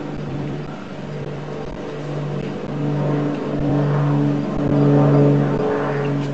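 A motor's steady hum, broken by short dropouts, growing louder about four to five seconds in.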